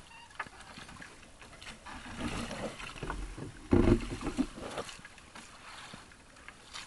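Sea water splashing and lapping around a small outrigger boat as a gill net with fish is hauled aboard by hand, with a brief louder burst about four seconds in.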